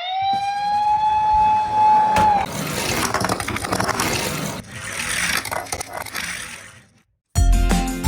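A police-car siren rises in pitch and holds one steady tone for about two seconds before cutting off. Then comes a rattling, clicking rolling noise of toy minicars running down a slope, which fades away. Music starts near the end.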